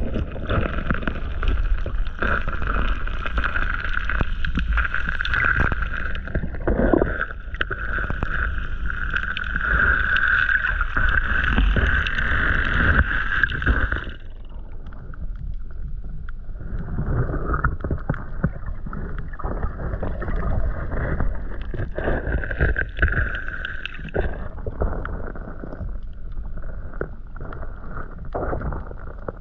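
Muffled, steady water noise from a camera held underwater in the shallows, with low rumble and gurgling; it drops in level about halfway through.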